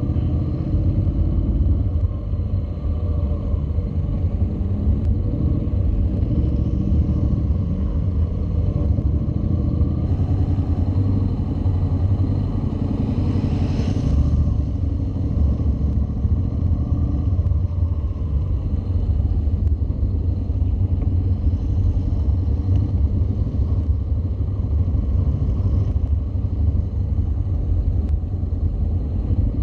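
Honda NC700's 670 cc parallel-twin engine running at low speed through slow cone-course manoeuvres, heard from the bike-mounted camera along with wind on its microphone. Near the middle there is a short rise in hiss.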